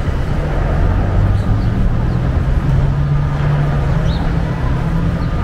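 City street traffic, with the low hum of a nearby motor vehicle's engine that rises in pitch about halfway through.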